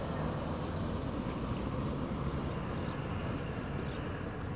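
Steady low rumble of outdoor background noise with a faint hiss above it; no distinct event stands out.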